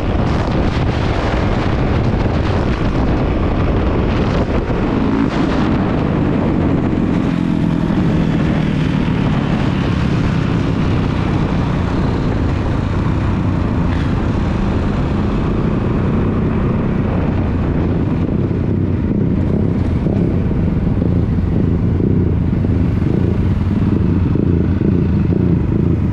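Dirt bike engine running under way, ridden on a road. Wind rushes over the microphone during the first few seconds, then the engine note holds steady.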